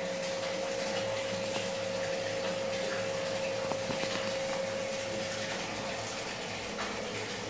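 Aquarium filtration running: water splashing and trickling steadily into the tank over a steady pump hum.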